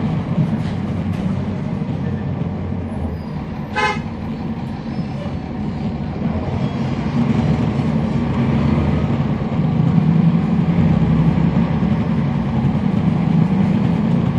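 Cummins ISL9 diesel engine of a NABI 40-SFW transit bus with a ZF Ecolife automatic transmission, heard from on board while the bus is under way. The engine drone grows louder from about six seconds in and is strongest near ten seconds as the bus pulls. A short horn toot comes about four seconds in.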